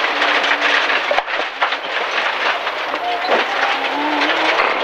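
MG ZR rally car's 1.4-litre engine pulling on a gravel stage, heard from inside the cabin, over a steady hiss of tyres on gravel with stones knocking against the underside. The engine note climbs about three seconds in as the car accelerates.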